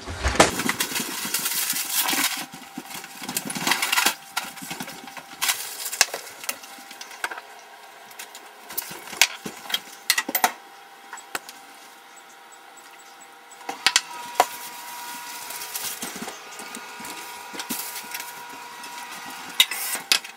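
Kitchen cooking noises: scattered clicks and knocks from handling cookware and utensils at the counter and oven, over a steady background noise that is loudest in the first few seconds.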